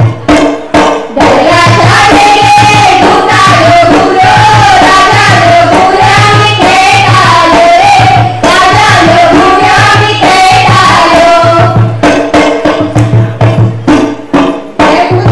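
Goan Kunbi folk dance music: women's voices singing together over a steady, regular drum beat. The singing is strongest through the middle, and the drum stands out alone at the start and near the end.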